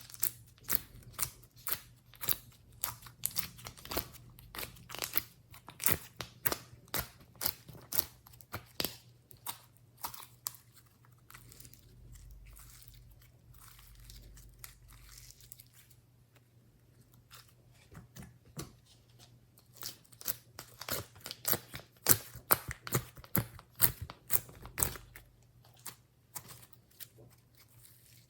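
Glossy slime being pressed and worked by hand, giving runs of crisp clicking pops several times a second. The pops thin out for a few seconds in the middle, then pick up again. A steady low hum runs underneath.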